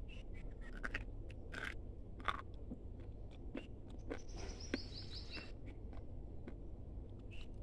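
Close-miked chewing of dry multani mitti (Fuller's earth clay): irregular crisp crunches as the clay breaks between the teeth, the sharpest about two seconds in.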